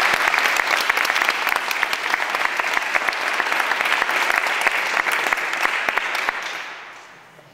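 Audience clapping, steady at first, then thinning out and dying away near the end.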